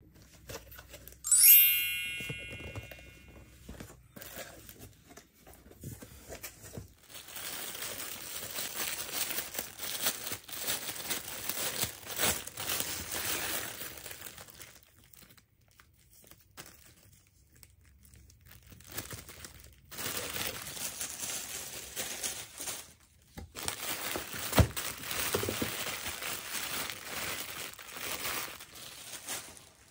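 A bright chime rings once about a second in and fades. Then a cardboard shipping box is opened and clear plastic packaging bags are handled, crinkling in two long stretches with a short quiet pause between them.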